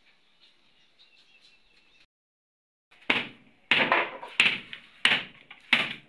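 A run of about five loud bangs of something striking wood, roughly two-thirds of a second apart, starting about three seconds in; before them, faint bird chirping.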